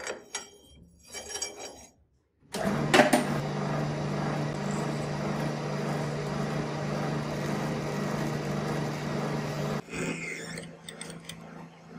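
A few knocks and clicks, then a metal lathe starting up about two and a half seconds in and running with a steady hum while it spins a brass rod that a small drill bit in the tailstock chuck bores into. The hum drops away sharply near the end.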